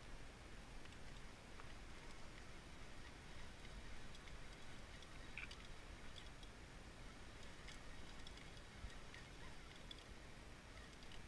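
Quiet outdoor background noise with a low rumble and faint, scattered small ticks.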